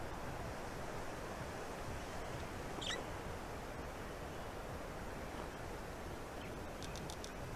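Steady outdoor hiss of forest air at a nest camera's microphone. About three seconds in there is one short, falling bird chirp, and near the end a few faint quick ticks.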